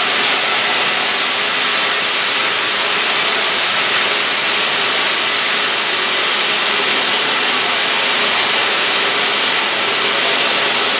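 Track-mounted cutting torch cutting through metal plate with a steady, even hiss.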